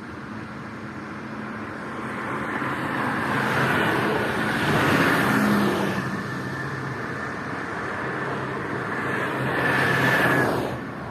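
Highway traffic: two vehicles pass at speed, one about halfway through and one near the end. Each is a swelling then fading rush of tyre and engine noise over a steady background of road noise.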